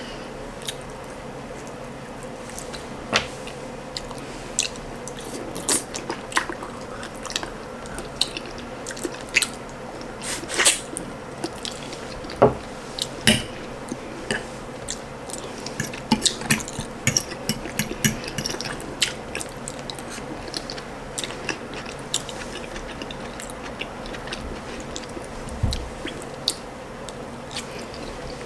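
Close-up eating sounds: wet chewing and lip smacks, with irregular sharp clicks scattered through, as soft boiled ripe plantain and ndole stew are eaten by hand.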